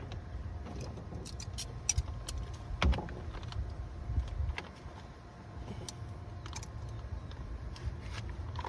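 Scattered light clicks and clinks of metal parts and hand tools being handled, over a low steady hum.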